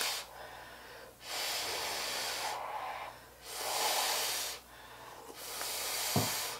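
Slurping of hot noodle soup: three long, hissing slurps as noodles and broth are sucked in with air.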